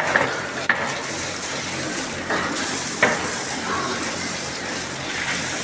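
Water running and splashing steadily as a pig pen is flushed out, with a few sharp knocks.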